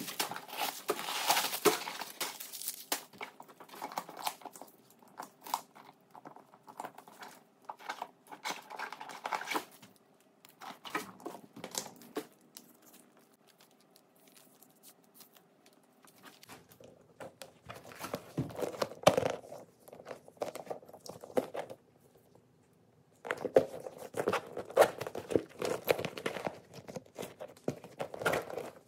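Paper stuffing crinkling and rustling as it is pulled out of a handbag, then irregular bursts of rustling and handling of the bag and its strap, with quiet pauses in between.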